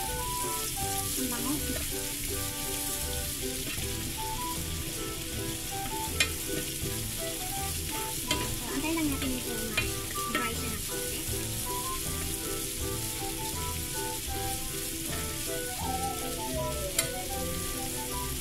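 Oil sizzling steadily as shrimp deep-fry in a saucepan and a garlic, leek and green pepper mixture fries in a nonstick skillet, with a spatula stirring and scraping through the pan and a few sharp taps against it.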